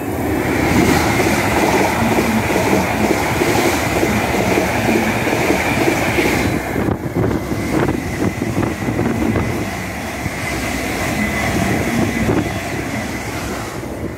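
Greater Anglia Class 745 electric multiple unit passing close by at speed: a loud, continuous rush of wheels on rail and air that comes up sharply at the start. A faint high whine runs through it and drops slightly in pitch about seven seconds in.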